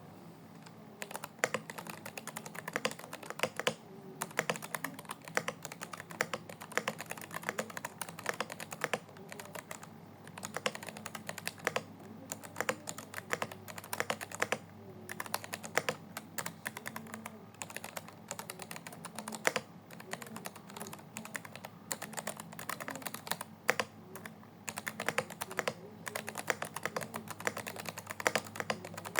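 Computer keyboard being typed on continuously: quick, irregular keystroke clicks with a few brief pauses.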